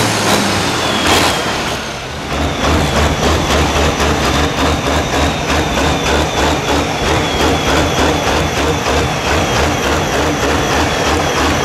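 Diesel engines of farm pulling tractors running loud. After about two seconds a deep, steady, pulsing rumble takes over: the blue New Holland pulling tractor's engine, sending black smoke from its stack.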